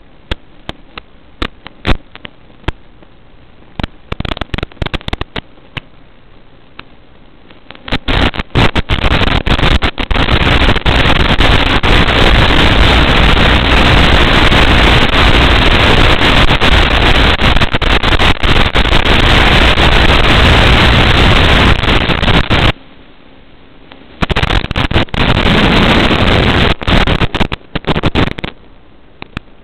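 Loud static hiss on an analog FPV video receiver's audio channel as the video signal breaks up: the sign of a weak or lost link. Scattered crackling clicks come first. The hiss sets in about eight seconds in, cuts off suddenly about two thirds of the way through, returns a second and a half later and stops near the end.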